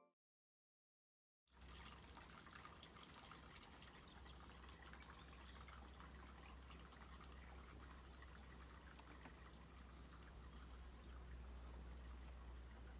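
After about a second and a half of silence, faint outdoor background noise comes in: a steady low rumble under a light hiss and crackle.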